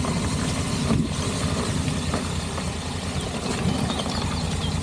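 Honda NC750X motorcycle's parallel-twin engine running steadily as the bike rides along a gravelled forest track, with a couple of short knocks about a second and two seconds in.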